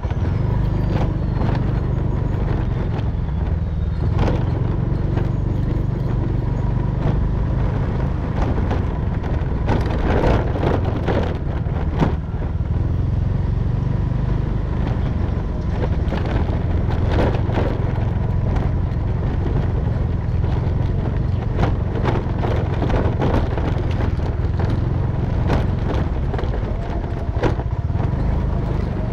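Motorcycle engine running steadily at low riding speed, with frequent short knocks and rattles as the bike rides over a rough, rutted dirt road.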